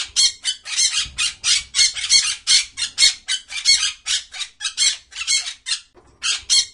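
Yellow (lutino) Indian ringneck parakeet giving a rapid string of harsh squawks, about four a second, which breaks off briefly near the end and then starts again.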